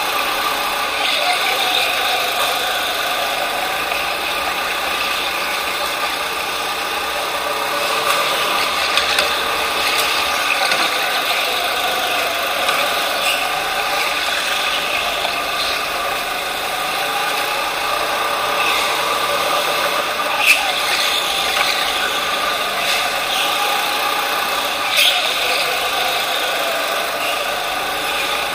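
Onboard sound of a racing go-kart running on an indoor track, its motor note rising and falling with the throttle through the corners, with chassis rattle and a couple of sharp knocks in the second half.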